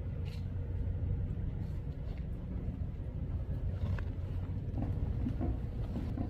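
Steady low outdoor rumble with a faint steady hum and a few soft clicks.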